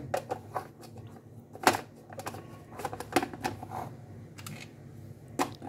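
Irregular hard plastic clicks and knocks as the black motor top of an electric food chopper is set onto its bowl and fitted in place, the loudest knock about one and a half seconds in. The chopper's motor is not running.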